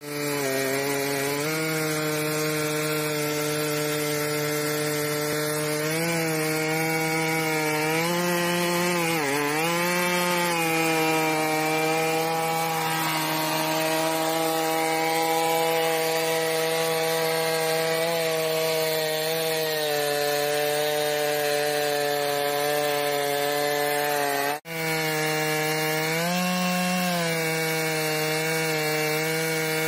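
Stihl MS 382 two-stroke chainsaw running at full throttle while ripping a log lengthwise in a chainsaw mill frame: a steady high engine note under cutting load that sags and recovers about nine seconds in. The sound cuts out for an instant about 25 seconds in.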